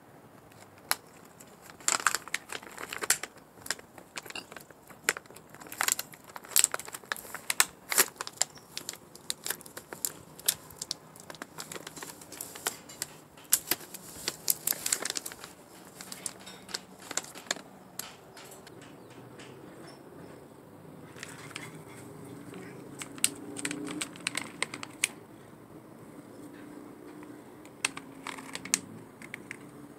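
Plastic cat-treat pouch crinkling and crackling as it is handled, in clusters of sharp crackles with a lull about two-thirds of the way through.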